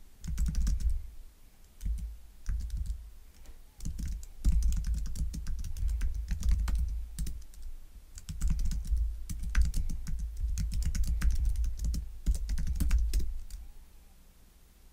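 Typing on a computer keyboard: quick bursts of key clicks with dull thuds of the keys bottoming out, broken by short pauses and stopping shortly before the end.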